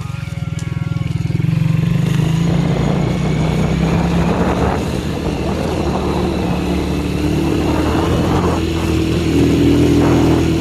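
Motorcycle engine running while being ridden. It grows louder over the first two seconds, then holds a steady note.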